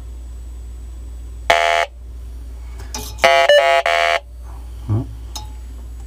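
Electronic refrigerant leak detector sounding its alarm buzzer in two bursts, a short one about a second and a half in and a longer one near the middle. The detector is on its most sensitive setting and is triggering as the probe touches the metal coils: a false alarm, not a leak.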